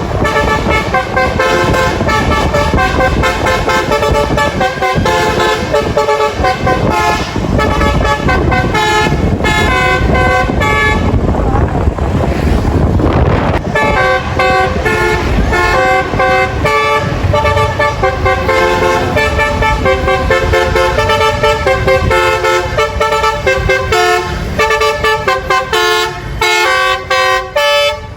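Bus basuri multi-tone 'telolet' horn playing a melody, loud, in quick stepping notes. It breaks off for about two seconds near the middle and then plays on.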